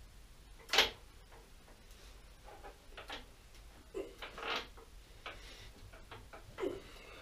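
Scattered light knocks and clinks of metal parts being handled while fitting a lathe saddle, with a sharp one just under a second in and another near the end.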